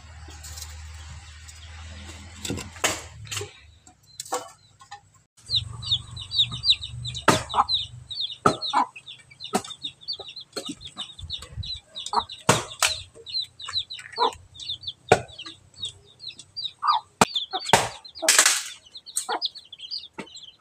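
Firewood being split by hand with a blade: sharp, irregular chopping strikes on wood start about five seconds in, roughly one every second. High bird chirping runs underneath.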